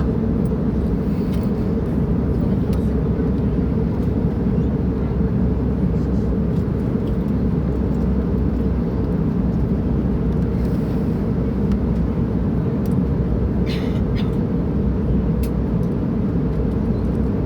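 Jet airliner cabin noise in flight: a steady low rumble and rush of air and engines, unchanging in level, while the plane is descending. A couple of faint clicks are heard about 14 seconds in.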